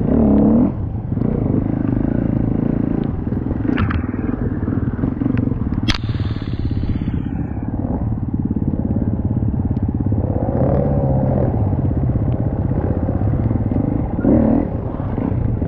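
TM 300 two-stroke enduro motorcycle engine running hard in mud. It revs up and falls back several times, with a sharp click about six seconds in.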